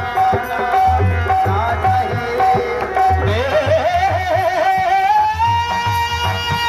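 Devotional bhajan music: a harmonium repeats a steady note over the regular beat of a dholak hand drum. About halfway through, a singing voice glides up with a wavering ornament and holds one long note.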